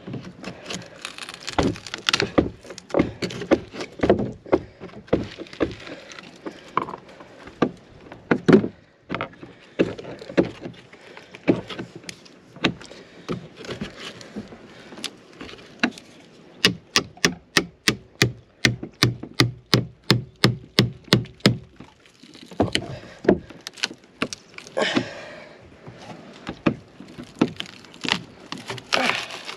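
A chisel is driven into and levered against old double-diagonal wooden hull planks, giving repeated sharp knocks and cracks of wood. About halfway through comes a quick, even run of knocks, three or four a second.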